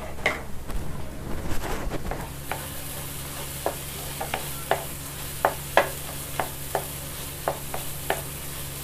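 Grated carrots frying in ghee in a nonstick kadai, stirred with a spatula. A soft sizzle sets in about two seconds in, and the spatula scrapes against the pan about three times a second.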